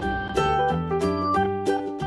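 Background music: a bright, rhythmic tune with plucked strings.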